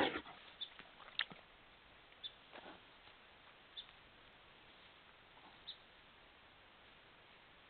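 Black bear brushing through grass and vegetation right at the trail camera, with a loud rustle at the start, a sharp snap a little over a second in and a softer rustle around two and a half seconds, over steady hiss. Short high chirps recur every second or two.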